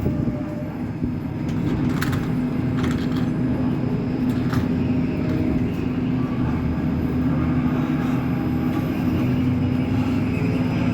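Caio Millenium BRT bus on a Scania K270UB chassis running with a steady hum. A few short clicks or rattles come about two to four and a half seconds in.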